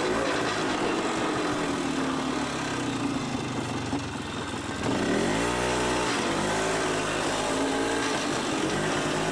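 ATV engine running while riding, its pitch rising and falling with the throttle. It eases off and drops about four seconds in, then revs up sharply around five seconds and falls back a second later.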